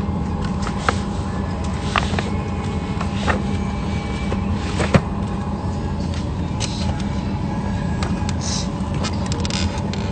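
Steady airliner cabin hum with a few faint steady tones running under it, broken by several sharp knocks, the loudest about five seconds in.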